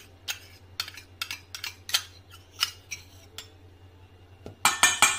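A metal spoon clinking and scraping against stainless steel bowls as butter is scooped from a small bowl into a mixing bowl of chopped vegetables and cheese. Short scattered clinks, then a quick run of louder clinks near the end.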